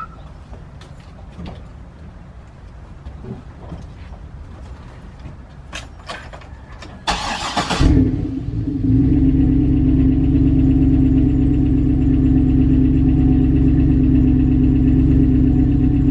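A pickup truck's engine is cranked by the starter and catches about seven seconds in, then settles into a steady idle. Before that there are a few light clicks and knocks.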